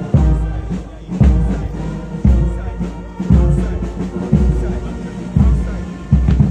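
Slow music with a heavy bass drum beat falling about once a second under sustained instrumental tones.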